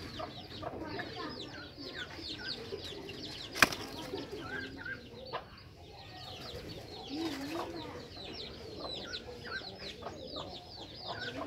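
Birds chirping rapidly in short, high, falling notes, with a low wavering call about seven seconds in. A single sharp crack stands out about three and a half seconds in.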